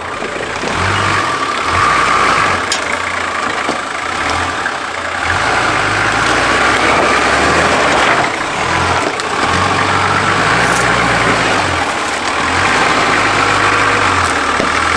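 A 4x4's engine idling while its winch is run in short bursts, starting and stopping several times as the line drags a loose rock into place.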